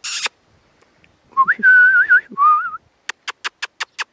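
A person calling a puppy: a short shushing hiss, then a warbling whistle that wavers up and down in pitch, then a rapid run of mouth clicks.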